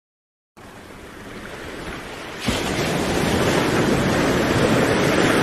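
Ocean surf: a steady rush of waves that fades in and swells sharply about two and a half seconds in.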